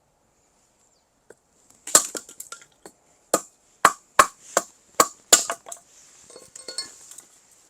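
Firewood knocking and clacking: about eight sharp wooden knocks, roughly two a second, starting about two seconds in, then a fainter clatter.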